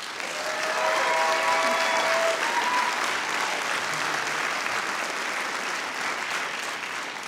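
Audience applauding steadily after a name is announced, with one voice giving a held cheer over the clapping about a second in.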